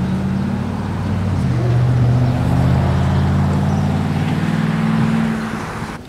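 A road vehicle's engine running nearby, a steady low hum whose pitch shifts a few times, with some road noise, dropping away near the end.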